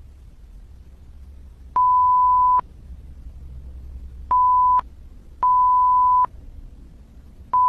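Censor-style bleep: a steady pure beep tone near 1 kHz that cuts in and out four times, each burst lasting under a second, the last starting just at the end. A faint low rumble lies underneath.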